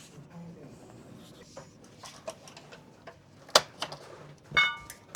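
Scattered sharp clicks and taps of plastic headlight parts being handled during reassembly, with a brief ringing squeak about four and a half seconds in.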